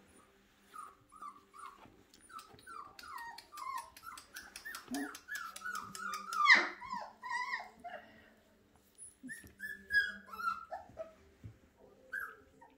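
Young puppies whimpering and whining: a quick string of short, high cries that each fall in pitch, with a louder, sharper yelp about six and a half seconds in and a brief lull around eight seconds.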